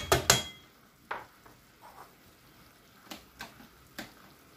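Metal spoon knocking and scraping against a frying pan as beef with garlic and onions is stirred, over faint sizzling. A quick cluster of knocks comes at the start, then single knocks about a second in and three more near the end.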